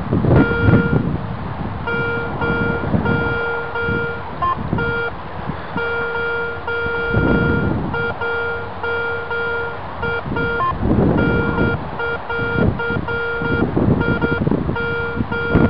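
Garrett Ace 250 metal detector sounding its target tone: a low, buzzy beep repeated on and off, some beeps short and some held about a second, with a few brief higher blips. It signals metal under the search coil as it sweeps back and forth. Low rustling noise comes and goes beneath it.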